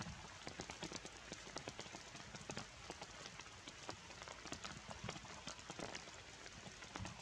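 Rain falling on wet leaves and rocks: a steady hiss with many separate drops landing at irregular moments.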